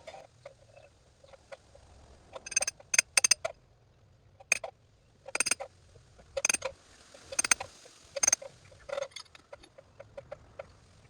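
Mini sledgehammer striking a threaded steel treehouse pin to start it into a drilled hole in a tree trunk: about nine sharp metal-on-metal strikes, roughly one a second, each with a short ring, and lighter ticks between them.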